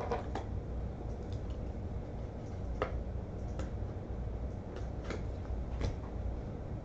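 Light, sharp clicks and soft plastic rustles from a baseball card being handled and slid into a clear plastic sleeve, about half a dozen scattered clicks in all, over a low steady hum.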